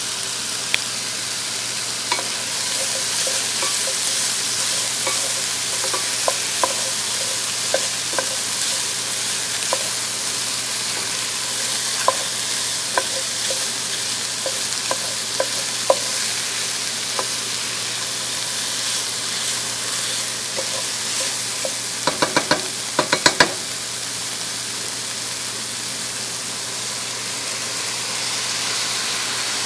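Sliced sausage, bell peppers and onion sizzling in a stainless steel pot while a wooden spoon stirs them, clacking against the pot now and then. A quick run of sharp knocks comes about three-quarters of the way through.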